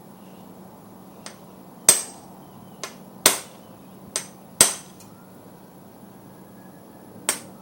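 Hammer blows on a Pittsburgh hand impact screwdriver to break loose a stuck screw. Three hard strikes come about a second and a half apart, with lighter taps between them and another light strike near the end, each ringing briefly.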